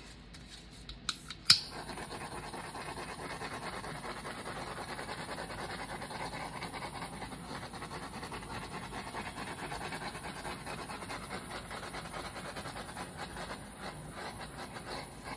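A small handheld heat tool clicks on about a second and a half in, then runs with a steady hiss as it is passed over wet epoxy resin to pop the surface bubbles before the resin sets.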